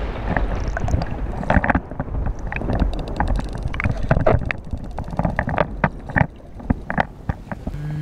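Muffled underwater rushing of water around a submerged action camera, with many irregular sharp clicks and knocks.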